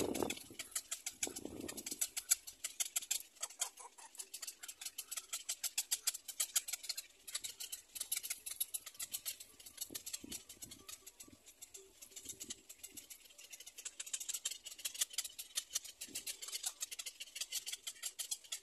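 Black-crowned night heron chicks calling from the nest: a rapid, steady run of short, high clicking calls, about three or four a second, with a few short lower calls now and then.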